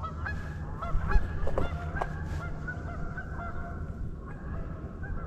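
A flock of geese honking, many short calls overlapping one after another, with a steady low hum underneath.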